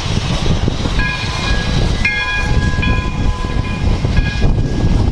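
Steam whistle of Santa Fe 4-6-2 locomotive 3415, a chime of several tones, blown in a series of blasts starting about a second in, over heavy wind noise on the microphone.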